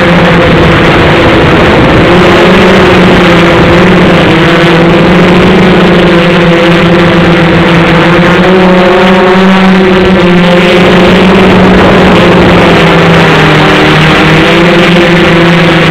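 Radio-controlled model airplane's engine, heard up close from a camera on the plane, running steadily at high speed with a slight wavering in pitch as it flies.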